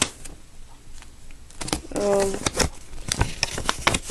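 Paper and an envelope rustling and crinkling as they are handled, with light scattered taps and clicks. About two seconds in, a short hummed voice sound.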